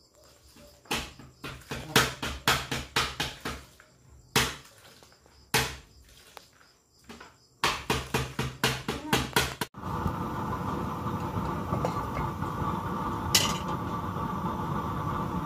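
Dishes and pots knocking and clinking as they are washed by hand in a basin, in quick, irregular knocks with short pauses. About ten seconds in, this gives way to the steady rushing noise of a homemade burner stove fired with used oil, burning under a pot.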